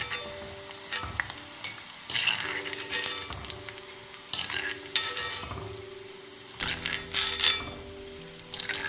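Sliced okra sizzling as it fries in coconut oil in a wok-style pan, with a spatula stirring and scraping against the pan in repeated strokes.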